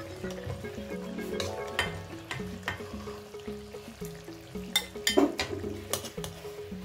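Metal ladle knocking and scraping against a metal wok (kadai) while liquid curry is scooped out, a few sharp clinks with the loudest about five seconds in. Background music with a steady melody plays throughout.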